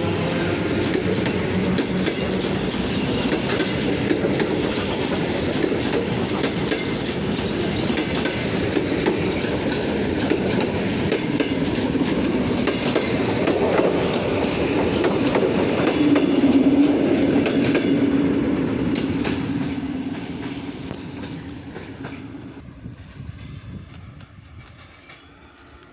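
ER9M electric multiple unit pulling out and running past close by, its wheels clattering over the rail joints. The noise peaks about two-thirds of the way in, then fades steadily as the train goes off into the distance.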